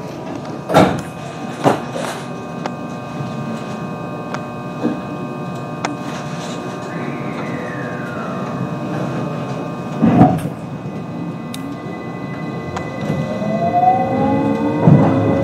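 JR West 223-0 series electric train with Hitachi IGBT-VVVF traction control, humming steadily while stopped, with a few sharp knocks early on and a louder thump about ten seconds in. Near the end the inverter and traction motors start a whine that rises steadily in pitch as the train pulls away and accelerates.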